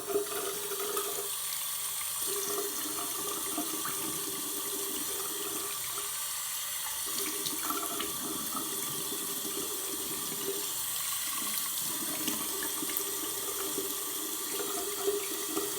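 Water running steadily from a tap into a sink, its tone dropping out briefly three times.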